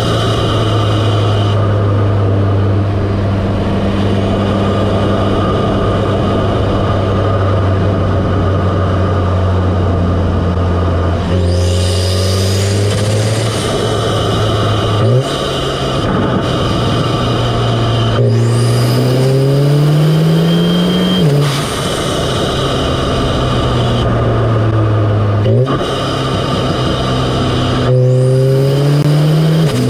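Audi S3's turbocharged 2.0-litre four-cylinder heard up close at its APR carbon fiber open intake: a steady induction drone at constant revs, then long climbs in pitch as the engine pulls, the pitch dropping suddenly twice as it shifts up.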